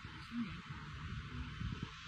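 Wind buffeting the microphone in an open field, a fairly quiet, steady rush with an uneven low rumble.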